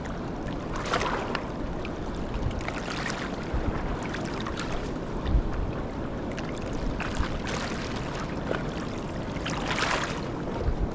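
Steady rushing noise of the Niagara River's fast-flowing water, with a few brief louder swishes.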